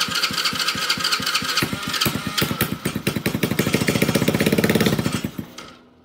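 Electric starter cranking a 110cc Chinese ATV's single-cylinder four-stroke engine, with a steady starter whine under regular compression pulses. About two seconds in the pulses come faster and heavier as the engine fires on fuel poured down the spark plug hole, its first run after installation, then it winds down and stops shortly before the end.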